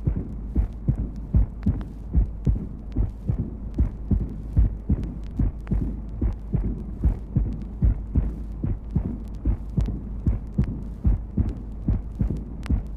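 Heart-sound recording of a heart with mitral insufficiency, made at the apex. A systolic murmur takes the place of the first heart sound and is followed by the second heart sound, beat after beat in a steady rhythm over a low hum.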